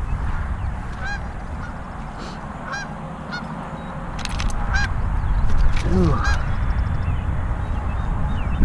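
Geese honking repeatedly, a short call every second or two, over a low rumble that grows louder about halfway through.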